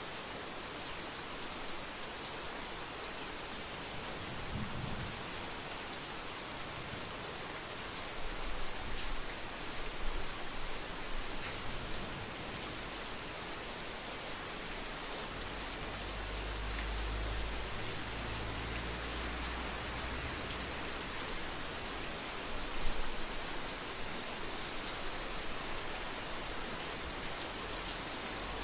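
Heavy rain falling steadily, a dense hiss thick with the patter of individual drops striking a roof. Low rumbles of distant thunder come in about a quarter of the way through and again, longer and stronger, past the middle.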